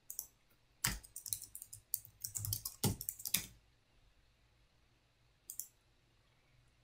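Typing on a computer keyboard: a quick run of key clicks for a few seconds, stopping about three and a half seconds in. A single mouse click follows a couple of seconds later.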